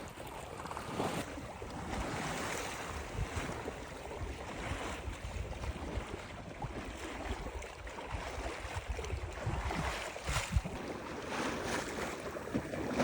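Water rushing and splashing along the hull of a moving boat, with wind buffeting the microphone in uneven gusts.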